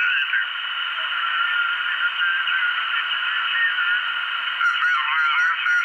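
Audio from a homebuilt amateur HF receiver tuned across the 20-meter band: steady band hiss, cut off sharply below and above like a receiver's narrow audio passband, with faint single-sideband voice signals warbling in it. Near the end a garbled sideband voice comes through more strongly.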